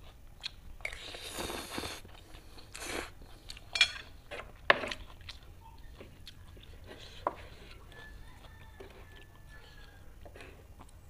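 A person eating spicy fried instant noodles close to the microphone: chewing and slurping, with a few sharp clicks, the loudest about four and five seconds in.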